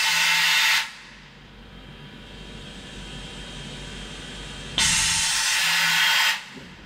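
Bridgeport VMC 500/16 vertical machining centre giving off loud bursts of hissing, like air blowing. The first cuts off under a second in, and a second burst of about a second and a half comes near the end, with a quieter machine hum between.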